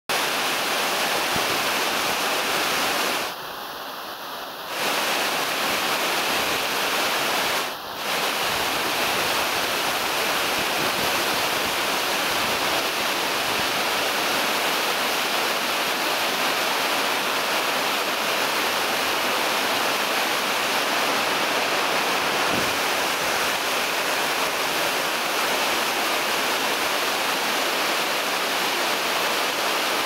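Waterfall rushing steadily, a dense even roar of falling water on rock. The level dips briefly twice, about three seconds in and about eight seconds in.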